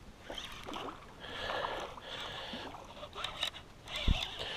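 Water splashing in short spells as a bass strikes a topwater frog lure and thrashes on the line next to a canoe, with a few sharp clicks and a single dull knock against the canoe near the end.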